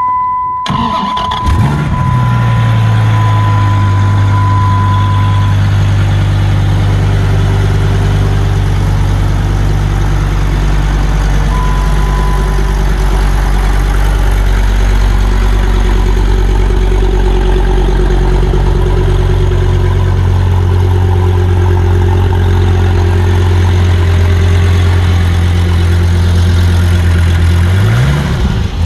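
Dodge Viper 8.4-litre V10 started on the button: it cranks, catches within about a second and a half, and settles into a steady idle. A steady high tone sounds over the first few seconds. Near the end the throttle is blipped and the revs rise and fall.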